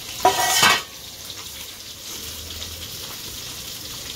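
Food frying in hot oil in a karai (wok) on a mud stove, a steady faint sizzle, with a brief loud hiss about half a second in.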